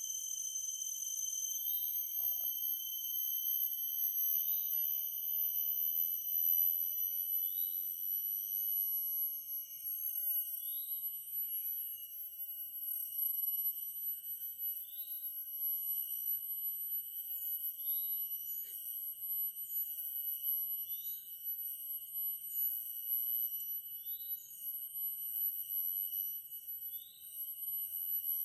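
Steady high-pitched drone of forest insects, several whining tones at once, with a short rising chirp repeating about every two seconds.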